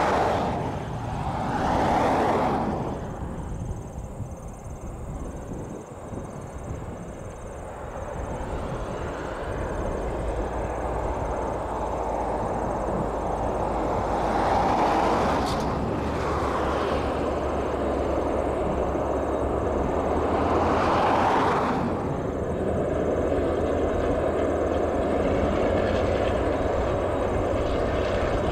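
DA-class diesel-electric locomotive hauling a train, its engine a steady low rumble, with louder rushing swells a few times.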